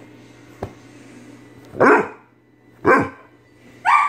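Pit bull barking: two short, loud barks about a second apart, with a third starting near the end.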